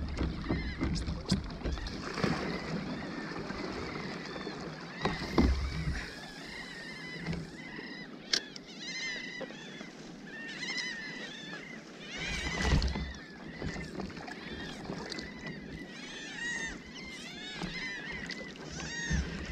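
Sea water sloshing around a fishing kayak, with low knocks about five seconds in and again about twelve seconds in. Through the second half, birds call over the water in quick runs of short chirps.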